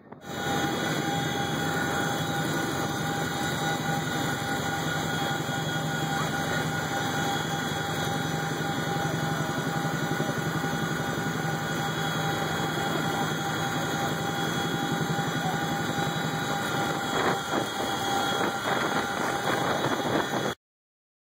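Steady cabin noise of a CH-47 Chinook helicopter in flight: a loud, even rush with a steady drone and several held whining tones over it, cutting off suddenly near the end.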